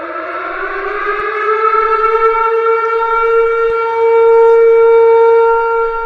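One long siren-like horn blast. It slides up in pitch over the first second or so, then holds a steady tone until it cuts off near the end.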